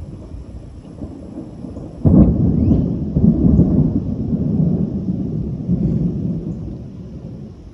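Thunder: a sudden clap about two seconds in, then a low rumble that rolls on in uneven swells and fades away over about five seconds.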